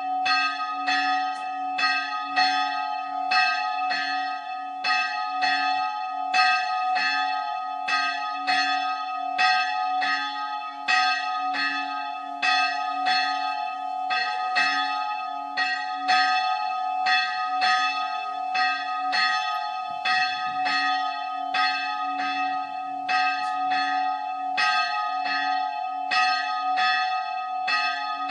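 The bell of the Old Island Church on Spiekeroog ringing steadily, struck about twice a second, its ring carrying on unbroken between strokes.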